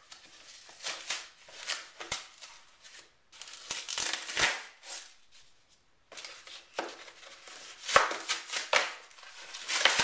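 Cardboard mailing box being opened by hand: irregular scraping, tearing and rustling of cardboard and packing, with a brief near-silent pause a little past the middle.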